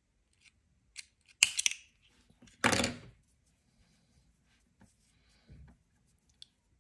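Small scissors snipping crochet cotton thread, trimming a loose end: a few sharp snips about a second and a half in and a louder, longer cut near three seconds, then faint handling of the work.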